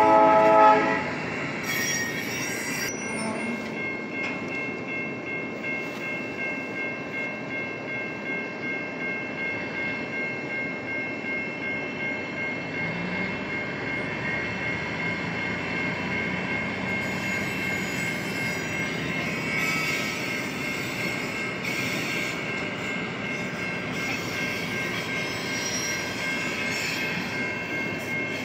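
Railroad grade-crossing bell ringing steadily, about two strokes a second, while a GE 65-ton switcher locomotive moves slowly past.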